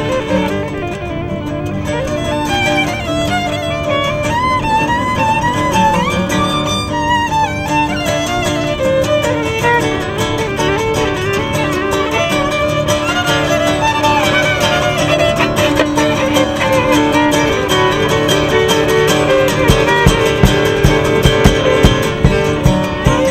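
Violin and acoustic guitar duet: the violin plays a flowing melody with vibrato over a strummed acoustic guitar. Near the end the guitar strums grow sharper and more accented.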